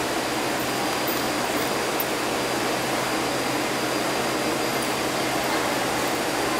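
Steady whir of the air-conditioning and ventilation of a Taipei Metro C381 train standing at the platform with its doors open, with a faint steady high whine joining about a second in.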